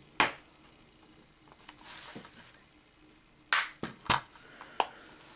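Plastic Blu-ray case and discs being handled. A sharp click comes just after the start, then a soft rustle around two seconds in, then a few more sharp plastic clicks about three and a half to five seconds in.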